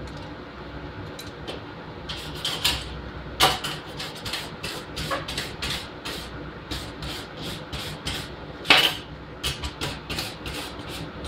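Irregular scraping and clinking strokes of metal on the galvanized steel garage door hinge being worked by hand, with two louder strokes, one about three and a half seconds in and one near nine seconds in, over a steady low hum.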